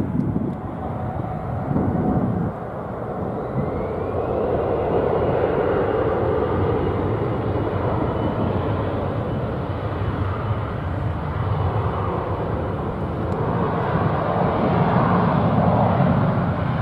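Boeing 777-300ER's twin GE90-115B turbofans at takeoff thrust: a steady jet roar with a thin high whine that rises a few seconds in and then holds as the airliner rolls and climbs out.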